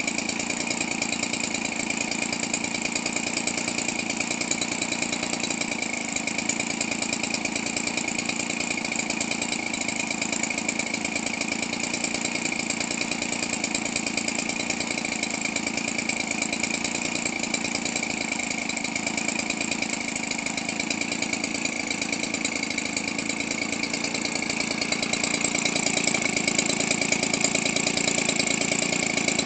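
Weedeater Featherlite 17cc two-stroke engine, converted for RC aircraft use, idling steadily and evenly. It gets a little louder near the end.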